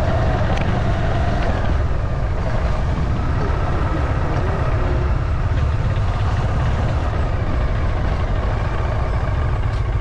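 Steady low rumble of a vehicle travelling along a road, with road and wind noise.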